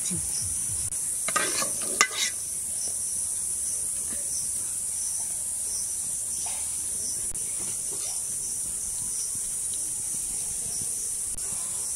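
Steady high-pitched chorus of insects. A metal spoon clinks against a steel bowl a few times about one and a half to two seconds in, followed by quiet stirring of custard powder into milk.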